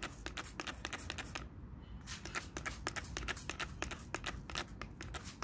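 Plastic hand trigger spray bottle being pumped over and over, a quick run of short spray bursts with a brief pause about one and a half seconds in.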